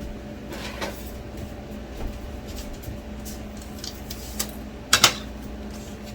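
Kitchen handling noises as pouches of liquid pectin are opened and added to a pot of herbal syrup: scattered light clicks and rustles over a steady low hum, with a sharp double knock about five seconds in.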